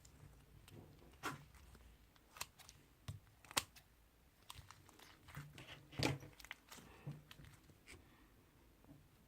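Slime being squeezed and pressed by hand, giving faint, irregular crackling pops and clicks, the strongest about three and a half and six seconds in.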